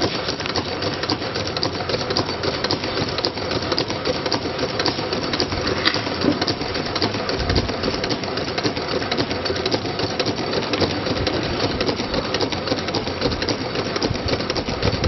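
Motor-driven switch test machine built from Makeblock parts, running continuously with a steady, rapid mechanical clatter as it repeatedly works the switches on electronic modules.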